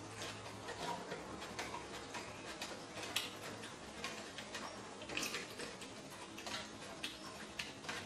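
Quiet eating sounds: chewing and mouth clicks, with light taps of wooden chopsticks on a plastic sushi tray, heard as irregular small clicks.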